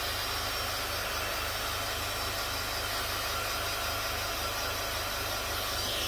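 Hair dryer blowing steadily on high, drying freshly airbrushed paint, with an even rush of air over a low motor hum.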